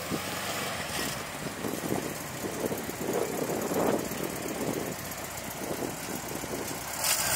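Volkswagen T3 van engine running at low revs during a slow turning manoeuvre, a little louder about three seconds in.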